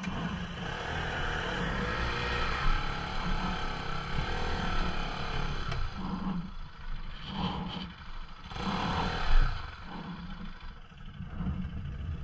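Bajaj Pulsar NS200 single-cylinder engine running under throttle on a rough dirt trail, its revs rising and falling as the rider works over the rocks.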